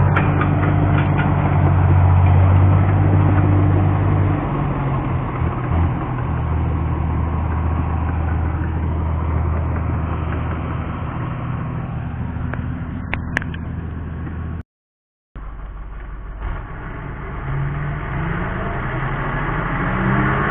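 Caterpillar bulldozer's diesel engine running with a steady low drone. The note shifts about four seconds in. The sound cuts out for about half a second around fifteen seconds in, then the engine revs up, its pitch rising, near the end.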